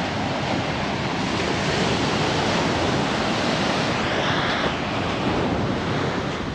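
Ocean surf washing onto a rocky shore, with wind on the microphone. The wash builds a couple of seconds in and eases off near the end.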